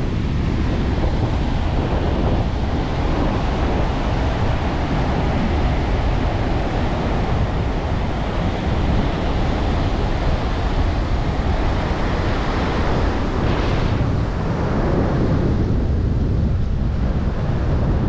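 Ocean surf breaking and washing up the sand, a steady rushing with a brief louder hiss about two-thirds of the way through. Wind buffets the microphone with a low rumble throughout.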